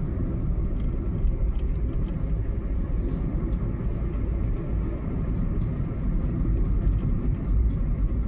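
Car driving along a highway: steady low road and engine rumble with no change in pace.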